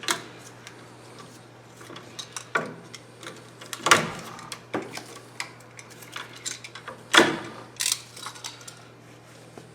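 Electrical cable being stripped with a hand tool: a series of sharp clicks and snips with handling rustle, the loudest snaps about four and seven seconds in.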